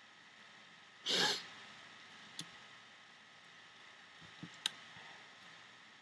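A short breath close to the microphone about a second in, followed by a few faint light clicks from rubber bands being set on the pegs of a plastic loom.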